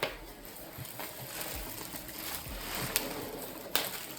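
A gift package being opened by hand: rustling and crackling of box and wrapping, with a few sharp clicks and snaps.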